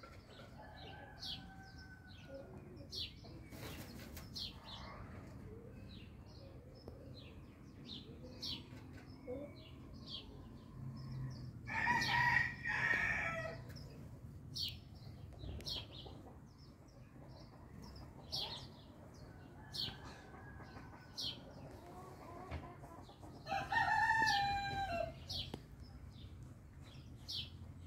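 Rooster crowing twice, about twelve and twenty-four seconds in, each crow a little under two seconds long. Short high bird chirps run throughout, with fainter clucking calls between the crows.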